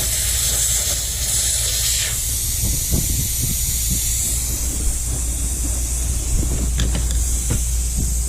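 Air hissing out of a car tire through a screw puncture as the screw is backed out, the hiss dropping off about two seconds in. A few light clicks of handling follow.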